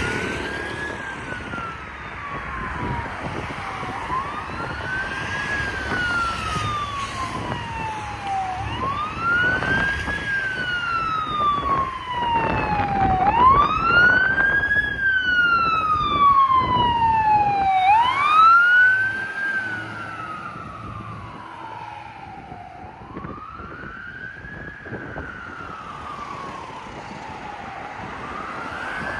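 Fire engine siren on a response run, wailing in a slow repeating cycle: each wail rises quickly and then falls slowly, about every four and a half seconds. It grows loudest around the middle and then fades as the engine moves away, over steady road traffic.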